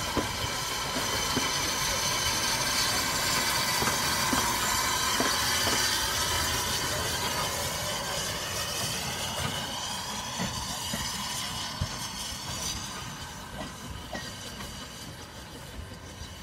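Small narrow-gauge steam locomotive running light, hissing steam as it moves along the rails. High whining tones glide upward partway through, and the sound fades as the engine draws away.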